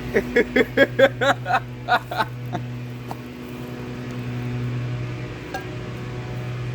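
Microwave oven running with a steady low electrical hum. In the first two seconds a person laughs in a quick string of about nine short pulses over the hum.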